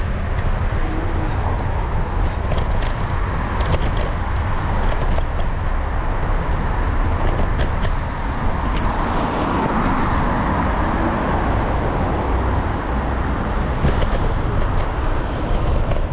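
Electric kick scooter rolling over brick paving and asphalt: a steady low rumble and rush of noise, with scattered small clicks and rattles.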